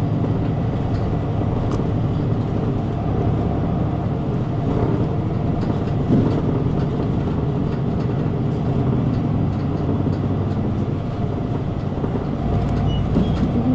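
Route bus engine running steadily as the bus drives along, heard from inside the passenger cabin as a continuous low drone with road noise and a few faint rattles.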